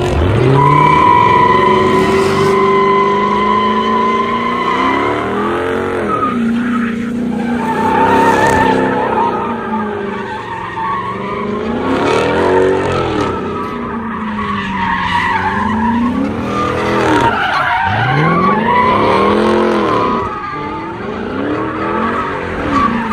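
A car spinning donuts, its tyres squealing and skidding while the engine revs up and down over and over, the pitch rising and falling every two to three seconds.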